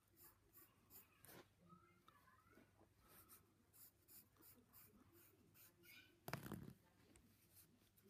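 Faint graphite pencil strokes scratching on sketchbook paper, in short repeated strokes, with one brief louder sound about six seconds in.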